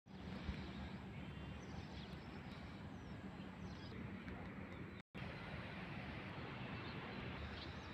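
Steady outdoor background noise with a few faint bird chirps; the sound drops out for an instant about five seconds in.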